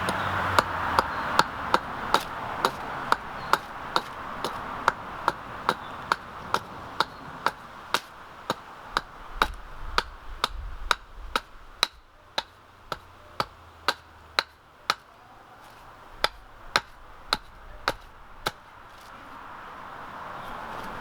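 Steady run of chopping blows into a seasoned ironbark or stringybark stump, about two to three strokes a second, stripping the bark. The blows grow fainter part way through and stop near the end.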